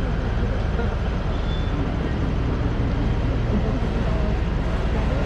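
Diesel locomotive engine running steadily with a low, even hum, as the train is worked on the wye.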